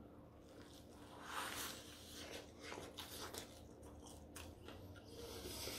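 Faint crunching and chewing as a bite is taken from a crispy-skinned smoked chicken drumstick, with irregular small crackles and clicks.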